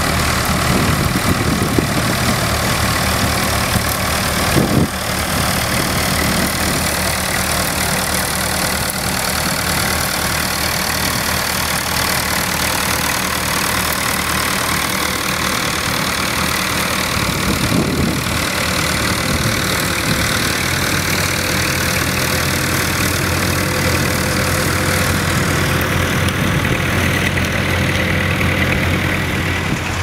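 Massey Ferguson 65 tractor engine running steadily under load as it pulls a mounted plough through stubble.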